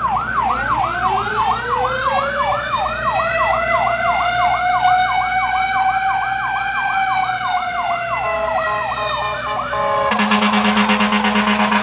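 Emergency vehicle sirens: one electronic siren on a fast yelp, about three to four sweeps a second, over a second siren that winds slowly up in pitch and then back down. About ten seconds in, the yelp stops and a loud buzzing horn tone sounds.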